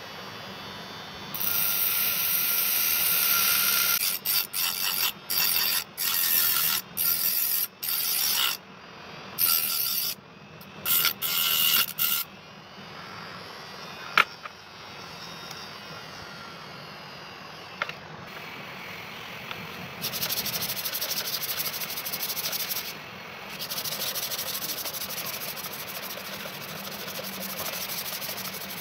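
Electric grinder with an abrasive disc grinding the steel blade of a butcher's slicer: a continuous high grinding whine, then a run of short bursts as the blade is pressed to the disc and lifted away. In the second half, a steady abrasive rubbing on the blade, broken by a brief pause.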